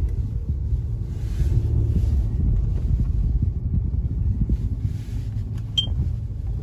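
Steady low rumble of a car driving, heard inside the cabin: road and engine noise, with some wind on the phone's microphone.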